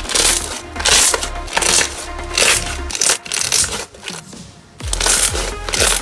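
A large mass of thick white slime squished and kneaded by hand, with wet, crackly squelches, over background music with a bass line that drops out briefly a little past the middle.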